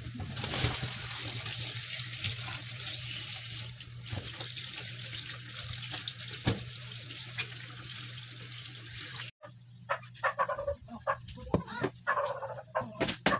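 Tap water running and splashing through a stainless mesh strainer in a steel sink as whole round scad are rubbed clean under it; it stops suddenly about nine seconds in. After that comes a run of short animal calls.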